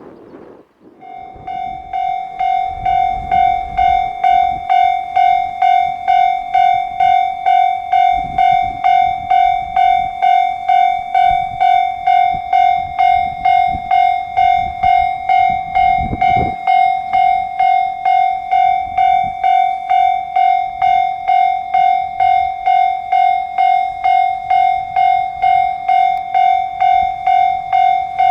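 Railway level crossing warning bell starting up about a second in and then ringing steadily, about two strokes a second. It signals that a train is approaching the crossing.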